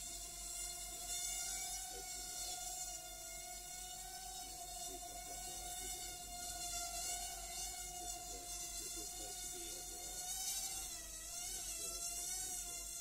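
Micro quadcopter's brushed motors whining at a steady, buzzing pitch. The pitch wobbles and dips briefly about ten to twelve seconds in. A low electrical hum runs underneath.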